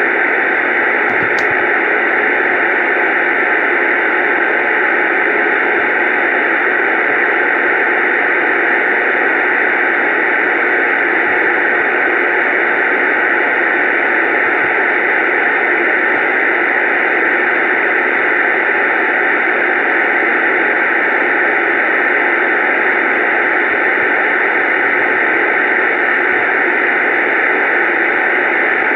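CB radio speaker putting out a steady hiss of static, even and unbroken.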